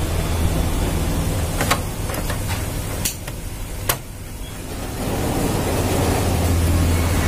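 Steady low hum with a few short clicks as cable connectors and wiring are handled at a photocopier's DC controller board.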